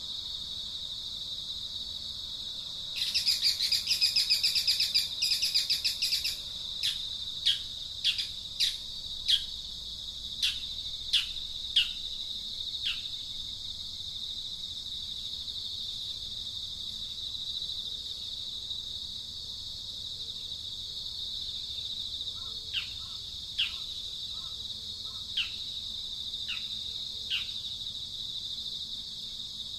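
Steady high-pitched insect drone, with birds calling over it: a loud, rapid trill lasting about three seconds, then a string of short, sharp, falling chirps that stop for a while and return near the end.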